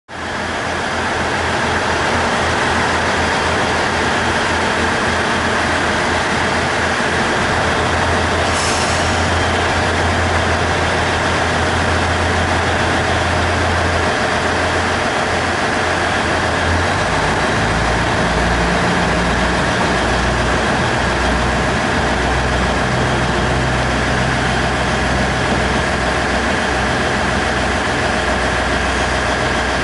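KiHa 110 series diesel railcars running at a station platform, a steady low engine drone that gives way partway through to a lower, pulsing engine note as one railcar pulls away. A brief hiss sounds about eight seconds in.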